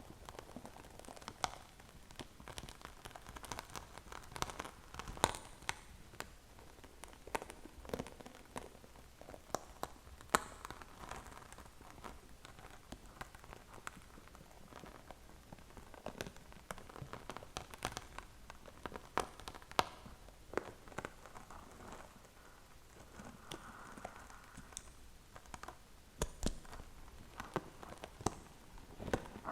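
A waffle crackling: irregular sharp crackles and clicks over a soft, steady rustle.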